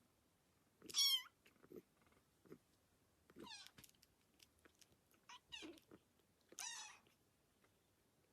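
A kitten mewing: four short, high-pitched mews a second or two apart, with soft little low sounds between them.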